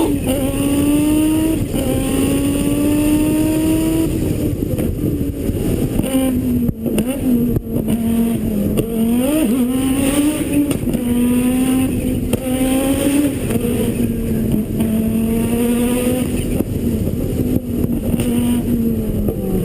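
Rally car engine running hard at high revs, its pitch climbing and then dropping back at each gear change, several times over, with steady gravel and road noise underneath.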